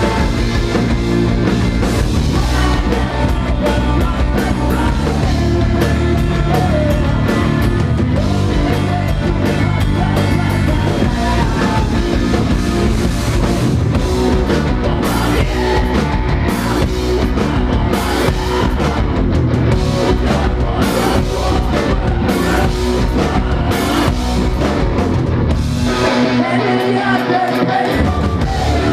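A rock band playing live, loud and dense, driven by a drum kit. Near the end the bass and kick drop out for about two seconds, then come back in.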